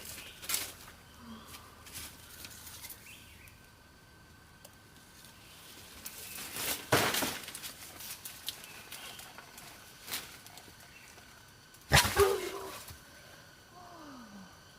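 An animal's short calls, with louder bursts of noise about a second long near the middle and about three-quarters of the way through, and a short falling call near the end.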